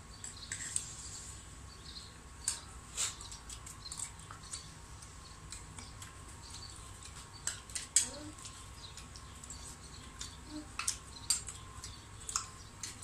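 Eating at the table: short sharp clicks of a spoon against a ceramic bowl and tongs in a metal tray, with chewing, scattered irregularly; the loudest click comes about eight seconds in. A faint steady high hum runs underneath.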